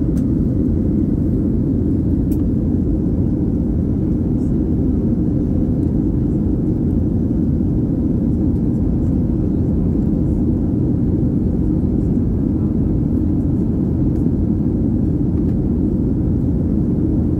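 Steady low rumble inside the cabin of a Boeing 737-800 in flight: the CFM56-7B engines and the airflow over the fuselage, heard from a window seat beside the wing.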